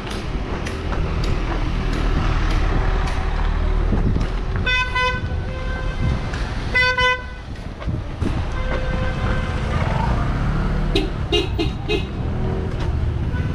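Vehicle horns honking in slow street traffic: two honks of about half a second each, around five and seven seconds in, then a few short, quick toots about eleven seconds in. Engines run steadily underneath.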